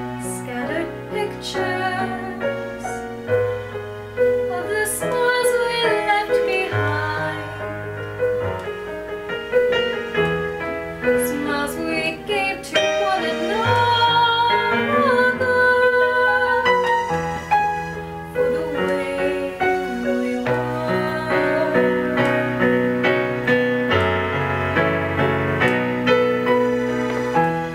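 An electronic keyboard plays piano chords and a bass line for a slow ballad, with a woman's voice singing a wavering melody over it.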